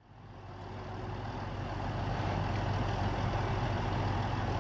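Heavy vehicle engine running steadily with a deep, even hum, fading in over the first second or so.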